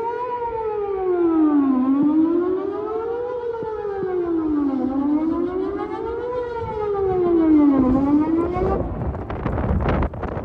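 Whelen WPS 4008 electronic outdoor warning siren sounding a wail tone for a routine test, its pitch rising and falling in a steady cycle of about three seconds. Near the end the tone cuts off and rough, gusty noise takes over.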